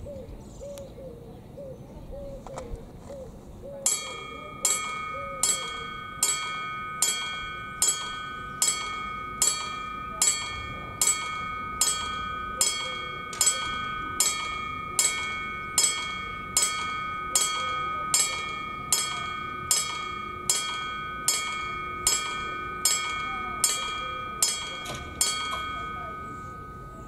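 Parisini level-crossing warning bell striking rapidly, about once every 0.8 seconds, while the crossing barriers lower for an approaching train. The striking starts about four seconds in and stops shortly before the end, and the bell's ringing carries on after the last strike.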